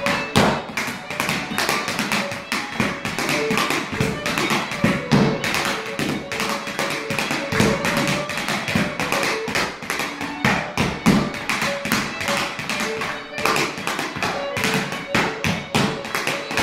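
Stepdance hard shoes tapping rapid, continuous rhythms on boards laid over floor mats, with fiddle music playing underneath.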